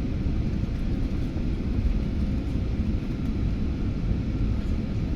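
Airliner noise during the landing: a steady low rumble with a faint steady hum, without change.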